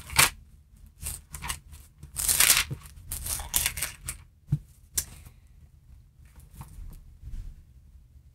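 Pages of a Bible being leafed through, several quick rustling flips in the first four seconds, then a couple of sharp taps before it goes quiet.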